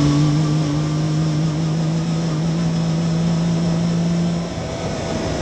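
Yamaha YXZ1000R side-by-side's three-cylinder engine running steadily under throttle as it drives along a dirt trail, its pitch creeping up slightly and then easing off about four and a half seconds in. A steady rush of noise runs underneath.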